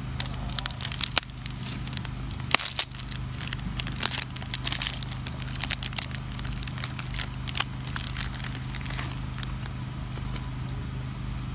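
Irregular crackling and crinkling, like crinkly plastic snack wrappers being handled while a macaque eats, over a low steady hum.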